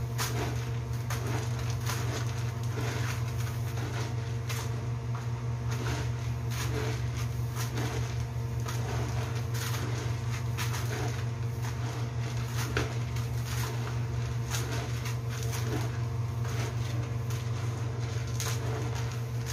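Hands scooping and tossing yellow glutinous rice in a plastic basin: irregular soft rustles and clicks of grains falling against the plastic, over a steady low hum.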